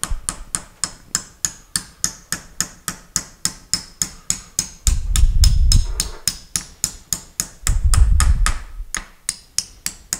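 Rapid, even hammer taps on steel, about four a second with a bright metallic ring, driving taper pins into a lathe tailstock. Twice, a loud low rumble of about a second joins in.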